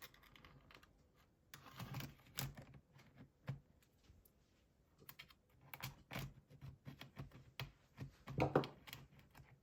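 Faint, irregular plastic clicks and taps from a laptop's bottom cover being handled as its edge clips come free.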